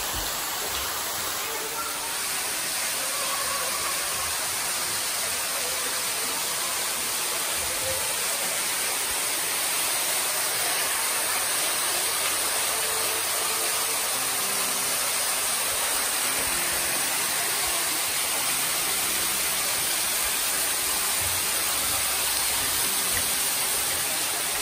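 Steady rushing of falling water, an even wash with no let-up.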